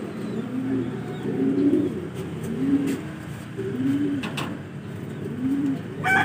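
Racing pigeons cooing in their loft: low, rolling coos that repeat about once a second. A rooster starts crowing right at the end.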